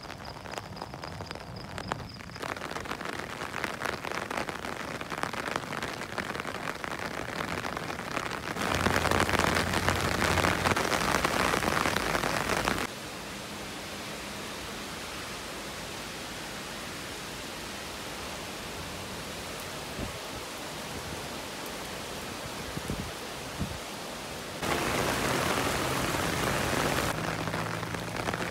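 Steady rain falling on wet roads and roadside trees, an even hiss with no pauses. Its loudness jumps up and down abruptly a few times, loudest for a few seconds about a third of the way in and again near the end.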